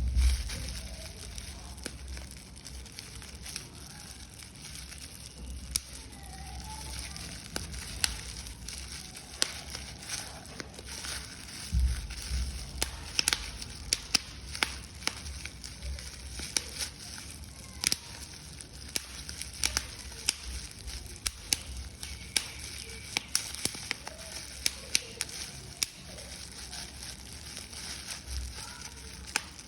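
Paper being crumpled and crushed by hand: a continuous, irregular crackle of sharp snaps, with a few dull bumps of handling at the start, about twelve seconds in and near the end.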